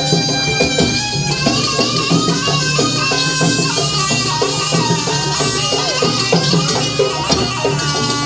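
Live jaranan dance accompaniment: a shrill reed shawm holds and bends a melody over quick, continuous drum strokes.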